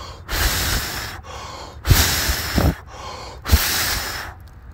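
A person blowing hard on a campfire's dying embers to revive it: three long, rushing breaths of about a second each, a little over a second and a half apart.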